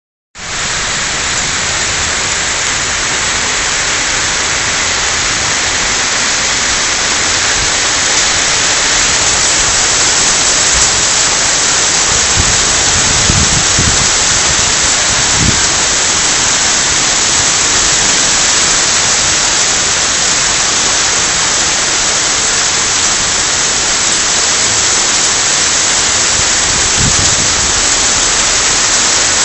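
Heavy downpour in a rain and wind storm: a loud, steady hiss of rain falling on trees, cars and pavement. A few brief low rumbles come about halfway through and again near the end.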